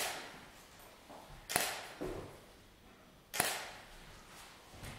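Camera shutter releases with a battery studio flash firing: three sharp clicks about one and a half to two seconds apart, each with a short room echo, and a few fainter clicks between them.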